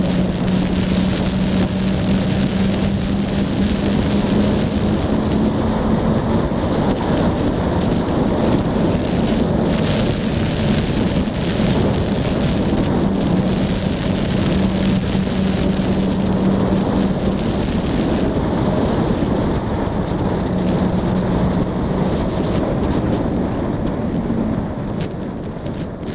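Yamaha Tracer motorcycle at steady road speed: heavy wind rush over the microphone with the engine's steady low drone underneath. Near the end both the wind and the engine ease off.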